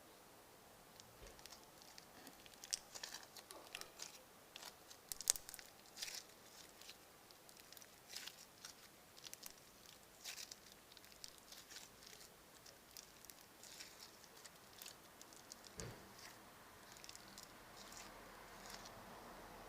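Crunchy slime being pressed and worked by hand, giving off quick, irregular crackles and pops, the loudest snap about five seconds in. A faint low traffic rumble rises near the end.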